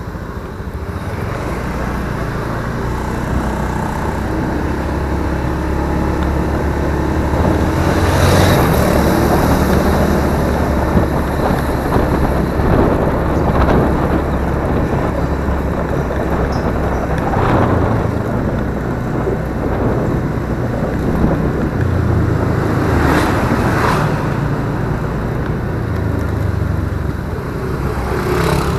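Honda automatic scooter's engine running with a steady low hum as it rides along, with road and wind noise swelling a few times.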